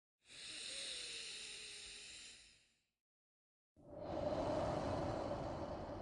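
Slow, drawn-out human breaths, paced for a relaxation breathing exercise. A soft, hissy breath fades out after about two and a half seconds. After a second of silence, a louder, lower breath begins.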